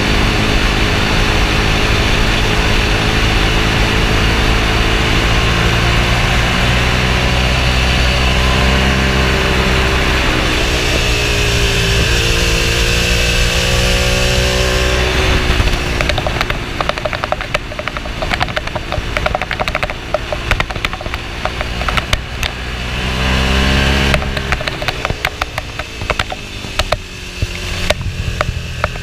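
Ducati Streetfighter 1098's L-twin engine under way, pulling steadily, then dipping and rising in pitch through a gear change. About halfway in the throttle closes and the engine runs on the overrun with irregular crackling, picking up briefly near the end before easing off again.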